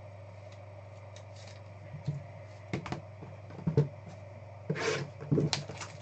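Hands handling sealed cardboard trading-card boxes on a tabletop. From about two seconds in there are a few short knocks and taps, then a brief scraping rustle near the end, over a low steady hum.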